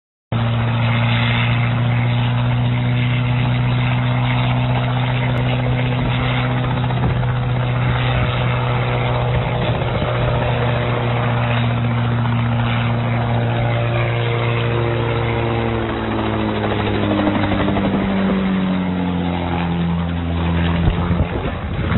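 Small light helicopter's engine and rotor running steadily through an unstable takeoff and hover, then falling in pitch over the last several seconds and breaking off shortly before the end as the helicopter plunges into the snow.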